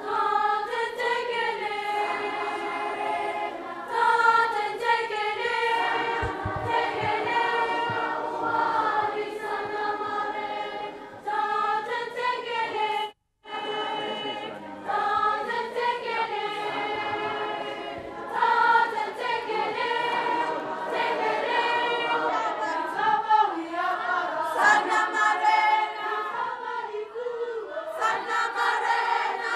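A choir singing, many voices holding sung notes together; the sound drops out completely for a moment about 13 seconds in.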